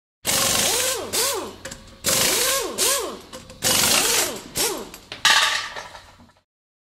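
Intro sound effects: three sudden bursts of noise, each fading out over about a second and a half with a tone that swoops up and down twice, then a fourth burst with a steadier ringing tone, cutting off about six seconds in.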